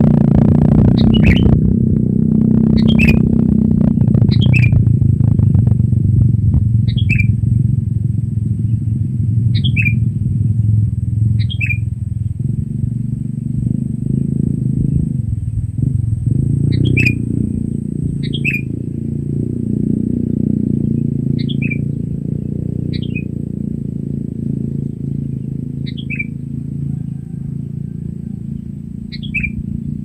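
Sooty-headed bulbul giving about a dozen short, sharp calls that drop in pitch, one every couple of seconds. Under them runs a steady low engine-like rumble, loudest in the first few seconds and slowly fading.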